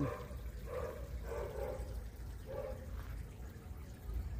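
A dog barking faintly, four short barks within the first three seconds.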